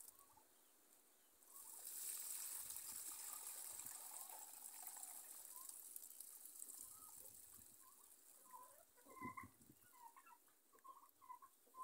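Water poured from a basin through a wooden-framed sieve into a plastic basin, draining the soaking water off cracked pigeon peas. The faint pouring starts about a second and a half in and tapers off, and short bird calls follow near the end.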